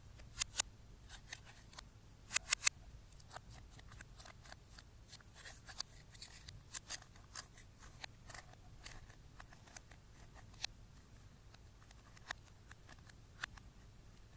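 Slime being worked with makeup mixed in, giving irregular small sharp clicks and pops. A quick run of three louder clicks comes about two and a half seconds in.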